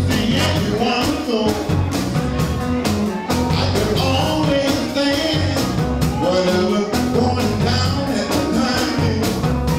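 Live soul band playing a steady-beat number with drums, electric bass and horns, under a male lead singer's voice.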